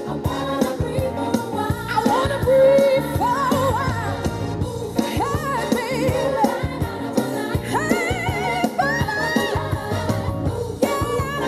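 A recorded pop/R&B song with lead vocals plays loudly over a venue sound system, with a steady beat and a voice holding wavering, vibrato notes.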